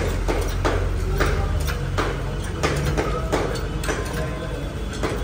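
Goat hide being pulled and fisted off the carcass by hand: short ripping and tearing noises, one every half second or so, over a steady low hum.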